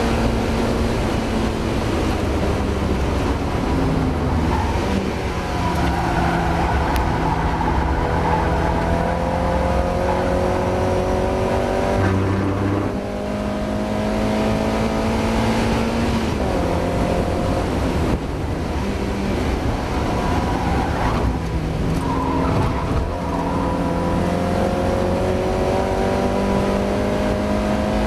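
Mazda MX-5 race car's four-cylinder engine under hard acceleration, its pitch climbing steadily and dropping back several times at gear changes or lifts. The owner reports the engine is struggling with a misfire in this race.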